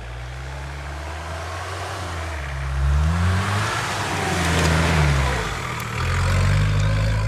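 Mitsubishi Pajero Mk1's engine revving up and dropping back several times under load while the 4x4 is pulled on a tow rope, with a rushing noise strongest in the middle.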